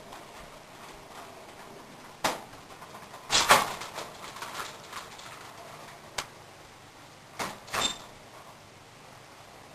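Small parts of an RC helicopter's rotor shaft assembly being handled and fitted by hand: a few scattered light clicks and knocks, the loudest cluster about three and a half seconds in, and a brief small metallic ping near the end.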